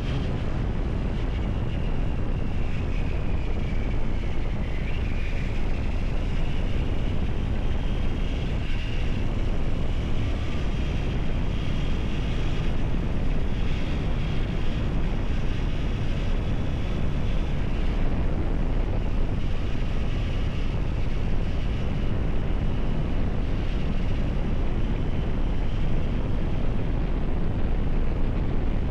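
Triumph Tiger 900 GT's three-cylinder engine running while the motorcycle is ridden, heavily buffeted by wind noise on the microphone. A faint whine wavers slightly in pitch above the steady rumble.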